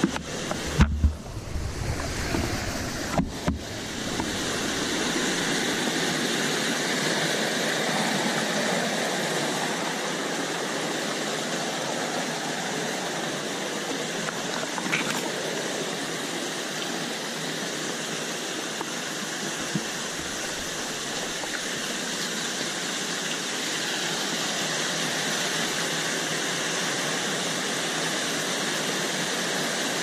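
Steady rush of a mountain stream running over boulders and small cascades, with a few sharp knocks in the first few seconds.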